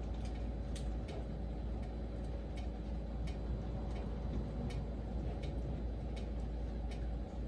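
Rain falling steadily, with irregular sharp ticks of single drops a few times a second.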